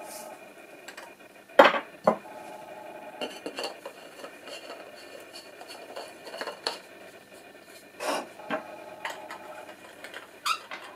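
Hard plastic fountain-set fittings and extension tube being handled and fitted together: scattered clicks and knocks, the loudest about a second and a half in, with light rubbing between.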